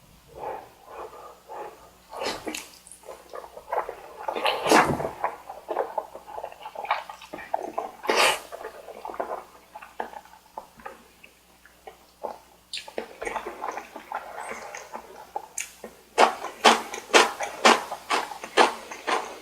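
Close-miked eating sounds: wet chewing, smacking and slurping of spicy carbonara Buldak noodles and chewy rice cake, with a longer slurp about five seconds in and steady chewing at about three smacks a second near the end.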